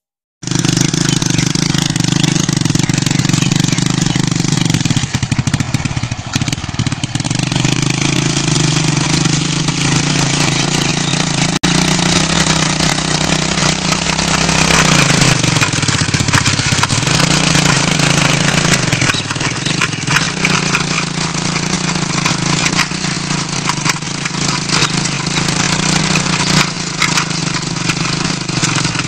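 Motorcycle engine driving a homemade rotary tiller, running steadily under load as the tines work the soil. Its pitch dips and recovers a couple of times.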